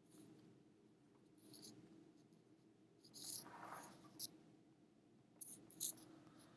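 Faint scratches and taps of a stylus on a drawing tablet: a few short strokes and one sharp click about four seconds in, over a faint steady hum.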